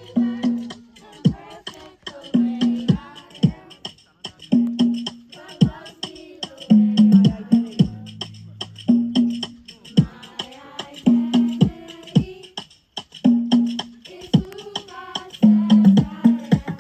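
Music with a steady beat of low, punchy notes and sharp percussive clicks, with a voice over it.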